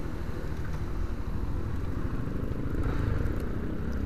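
Honda CB 250 Twister's single-cylinder engine running at low speed as the motorcycle slows, with wind buffeting the bare camera microphone.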